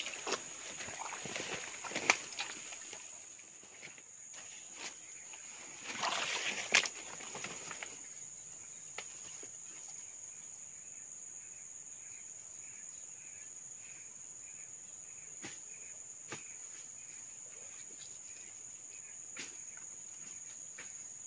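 Steady high-pitched drone of insects in swamp forest, with a fainter pulsing insect call below it. Rustling, sharp clicks and a splash or two in the first two seconds and again about six seconds in, as hands work in a muddy water-filled hole.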